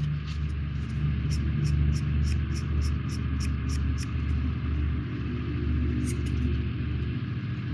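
A small pad rubbed back and forth over a plastic model-kit part, smoothing its putty-filled seams: a run of short scratchy strokes, about three a second, for a few seconds, with one more stroke later, over a steady low hum.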